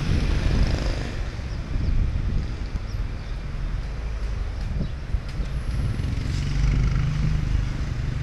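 Street traffic: a motor vehicle's engine running close by, its low tone strongest near the end, over a steady low rumble.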